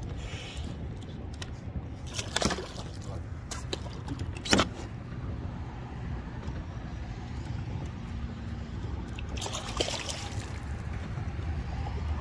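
Gear being handled by hand in a kayak: a few sharp clicks and knocks, the loudest about four and a half seconds in and another cluster near ten seconds, over a low steady rumble.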